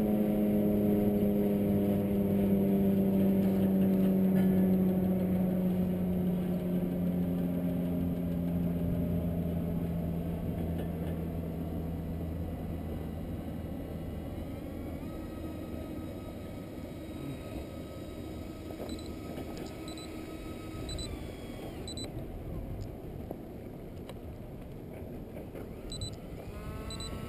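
Airliner engines running down on the runway: a steady pitched drone that slides slowly lower and fades over the first dozen seconds. A softer engine sound is left as the plane taxis, with a few short high beeps near the end.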